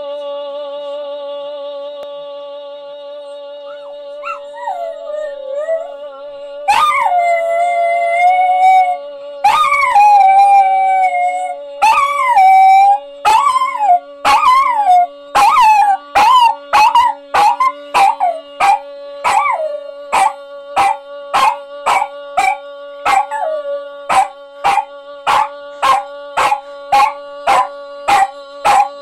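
Small dog howling and yipping along to a long, steady held goal cry ('Toooor'). From about halfway through, the dog settles into regular barks, roughly one and a half a second.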